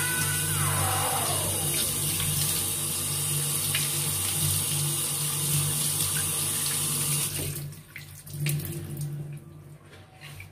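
Tap water running into a stainless steel sink as a squid is rinsed under the stream. The sound drops sharply about seven seconds in, leaving fainter splashing and a few light knocks.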